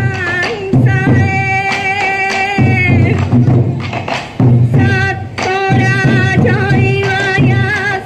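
Sansa odori festival music: taiko drums beating steadily under a held, slightly wavering melody, in phrases of about two seconds with brief breaks between them.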